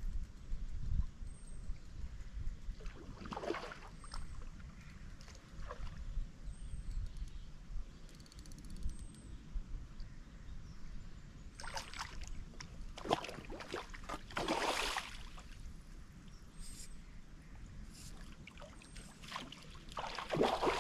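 Water sloshing and splashing at the river's edge in several short bursts, loudest near the end, as a hooked barbel is played in close to the bank, over a steady low wind rumble on the microphone.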